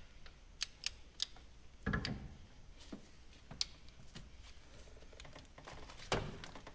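Scattered clicks and two duller knocks from a ratchet wrench on a cylinder head bolt of a GM 5.3-litre LS V8, the bolt being turned through its 90-degree angle-torque step.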